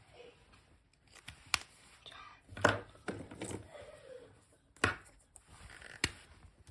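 Handling noises on a wooden tabletop: about five sharp taps and clicks from markers and hands, with light rustling between them.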